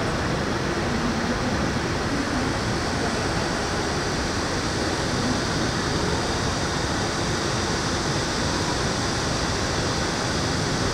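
Steady city ambience: an even rush of noise, such as distant traffic and building ventilation, with no distinct events standing out.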